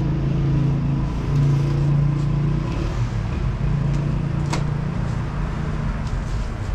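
Vehicle engine running steadily with a low hum that rises and falls slightly in pitch, and a single sharp click about four and a half seconds in.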